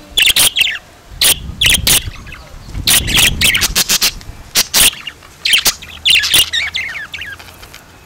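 Caged budgerigars chirping: a run of short, sharp calls, some with quick warbling glides in pitch.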